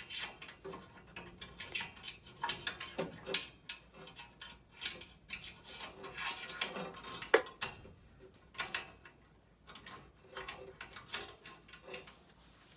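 Irregular clicks, taps and light metallic knocks of hands handling furnace parts, with a sharp click about seven seconds in.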